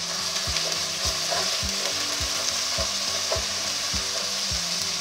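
Minced garlic, ketchup and soy sauce sizzling steadily in melted butter in a pan, stirred and pushed around with a wooden spatula.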